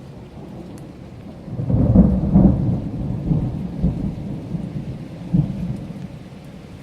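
A clap of thunder rolling over steady rain: a deep rumble builds about a second and a half in, peaks, then rumbles on and slowly fades.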